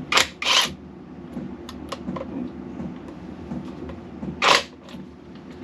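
Hand work on small engine-casing screws: a few sharp metallic clicks and scrapes of a screwdriver and loose screws, with two quick strikes near the start and a louder one near the end.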